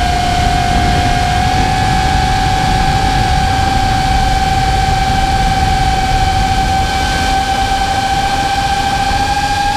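FPV quadcopter's brushless motors and propellers giving a steady high whine, edging up in pitch over the first second or two, with wind rushing over the onboard camera's microphone.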